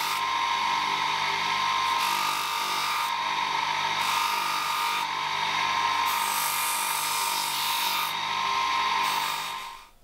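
Electric bench motor running a wheel with a steady whine and hum, with a copper knife handle pressed against the spinning wheel: a rasping hiss that comes and goes as the metal is worked. Everything cuts off just before the end.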